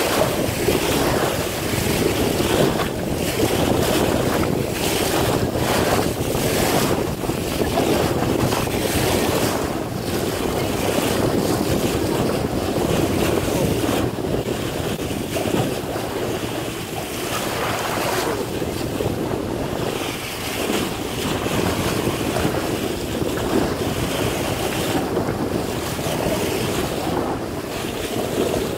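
Water rushing and splashing along the hull of a boat under way, with gusty wind buffeting the microphone.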